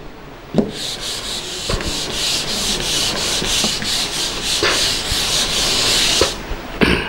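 A whiteboard being wiped clean by hand: a scrubbing rub in quick back-and-forth strokes, about three a second, after a knock against the board about half a second in.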